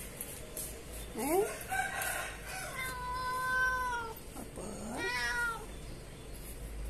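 Calico cat meowing for food: one long meow of about three seconds that rises at its start, then a shorter rising meow about five seconds in.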